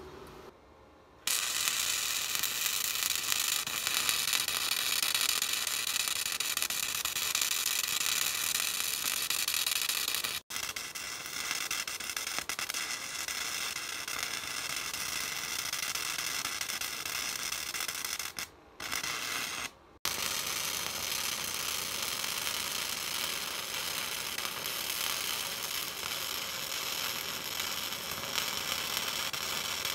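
Stick-welding arc sizzling steadily on a steel bar frame. It strikes about a second in and goes out for a moment three times, twice in quick succession about two-thirds of the way through.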